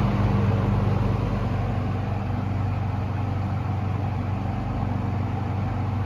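Penncrest 200 (Lakewood-made) model 9713-A 20-inch box fan running on medium speed with its blades reversed to exhaust: a steady motor hum under an even rush of air, easing down a little in the first second or two as it settles from high.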